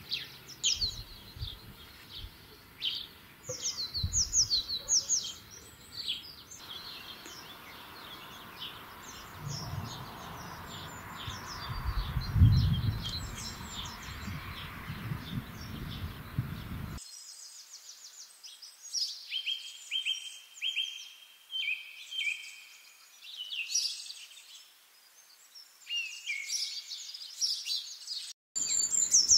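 Several wild songbirds singing, with quick high chirps, trills and repeated phrases overlapping. A low rumble swells beneath them in the middle, and about two-thirds of the way through the background hiss drops away abruptly, leaving clearer separate songs.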